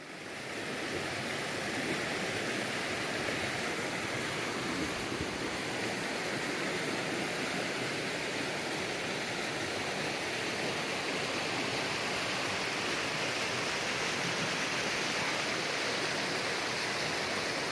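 Steady rush of a river running through a rocky ravine, fading in over the first second and then holding even.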